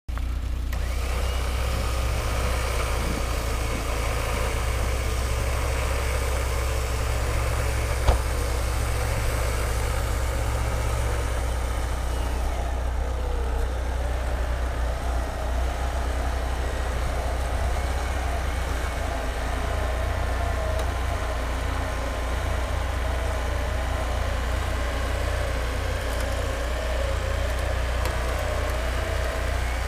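Vehicle engine idling steadily as a low rumble, with one sharp click about eight seconds in.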